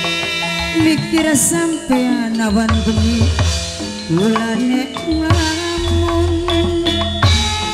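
Gamelan music for a wayang kulit shadow-puppet play: ringing metal-keyed instruments and a sliding melody over steady drum beats, with the drumming heavier in the second half.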